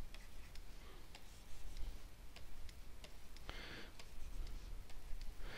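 Light, irregular clicks of a pen stylus on a drawing tablet, several a second, with a brief soft hiss about three and a half seconds in.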